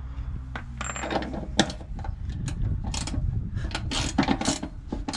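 Hand ratchet with a 24 mm socket clicking as a leaf spring hanger bolt's nut is undone. The clicks are scattered at first, then come in quicker runs from about three seconds in.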